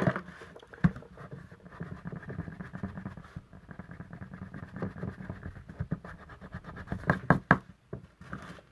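Card stock being handled and worked on a table: irregular rustling and rubbing with small clicks, a louder knock at the start and a quick cluster of sharp taps about seven seconds in.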